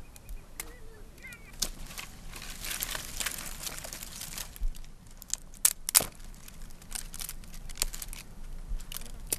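Dry, thorny brushwood being broken and gathered by hand for firewood: twigs rustling and crackling, with a few sharp snaps of branches breaking about six seconds in.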